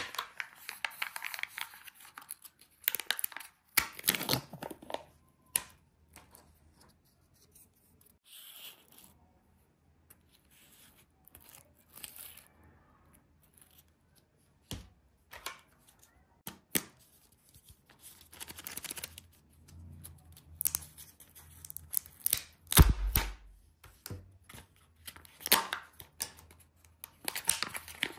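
Kinder Joy egg packaging being handled and opened: the sealed foil lids are peeled and torn off, and the plastic shells and spoon crinkle and click, in irregular bursts with quiet gaps between them. A dull thump comes a little past the middle, and a long stretch of peeling at the end.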